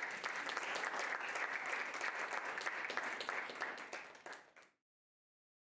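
Audience applauding after a song, a dense patter of many hands clapping that fades out and stops about four and a half seconds in.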